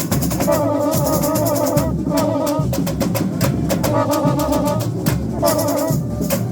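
Samba school bateria playing a fast samba beat, a dense wall of drums and rapid percussion hits, with a melody line over it in short phrases.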